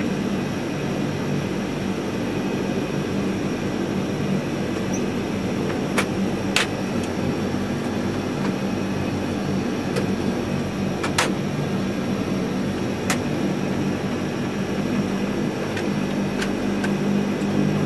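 Steady drone of a Lockheed L-188 Electra's four Allison 501 turboprop engines heard inside the cockpit while taxiing, with a low hum running under it. Several sharp clicks stand out over the engine noise, two of them about six seconds in and others near the middle.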